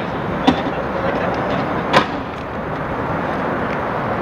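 Steady rolling noise of inline skate wheels on an outdoor rink surface, with two sharp knocks, a small one about half a second in and a louder one about two seconds in.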